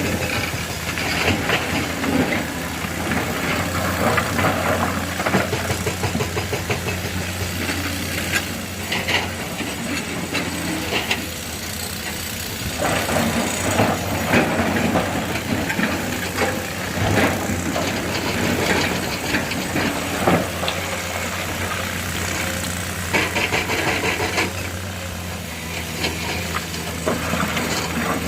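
Diesel engine of a Komatsu PC210 excavator running steadily under a hydraulic working load, with irregular clatter and knocks of granite rock as the bucket digs and loads a tipper truck.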